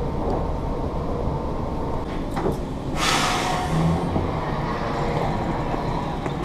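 Commuter train rumbling steadily, heard from on board, with a sudden loud hiss of air about three seconds in that fades away over a second or so.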